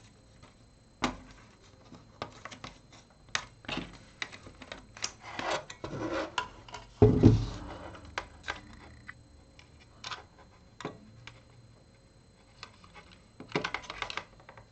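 Hands and small tools working on an opened DAB radio: irregular clicks, taps and short scrapes on plastic and metal parts, with a heavier knock about seven seconds in.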